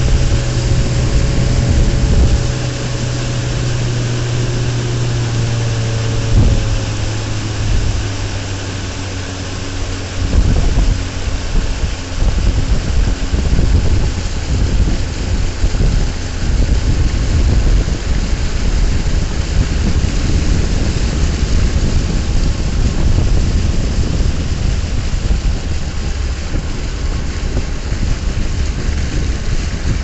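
Outboard motor of a small boat running at speed, with water rushing past the hull. The motor's steady hum stands out for the first eight seconds or so, after which the rushing noise dominates.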